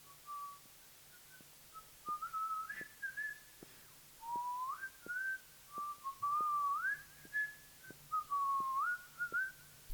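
A person whistling a slow tune: a single clear tone moving between short held notes with upward slides. Faint, evenly spaced ticks sound about every half second underneath.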